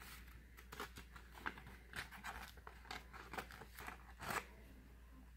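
Faint rustling and crinkling of paper as a small paper cutout is pushed through a hole in a printed paper sheet: a string of short crackles, the loudest about four seconds in.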